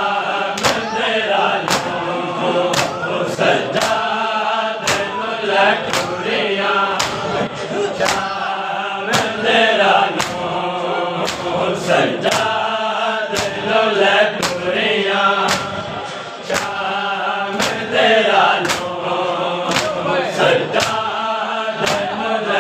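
Group of men chanting a noha, a Shia mourning lament, in unison, with the sharp slaps of hands striking chests (matam) keeping a steady beat about once or twice a second.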